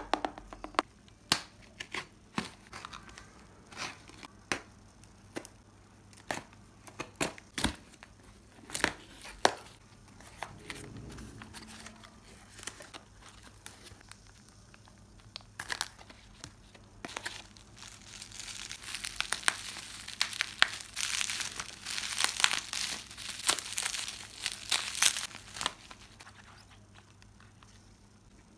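Packaging being unwrapped by hand: crinkling and tearing, with scattered sharp clicks and crackles through the first half and a stretch of dense, continuous crinkling in the second half.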